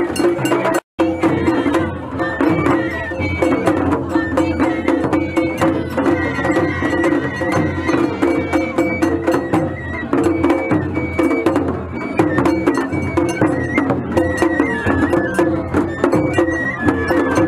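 Japanese festival hayashi music from a float: a bamboo transverse flute (shinobue) playing a wavering high melody over steady, dense taiko drumming. The sound drops out briefly about a second in.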